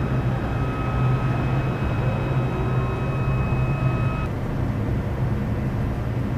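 Steady low drone of running kitchen machinery, with a thin high whine that cuts off about four seconds in.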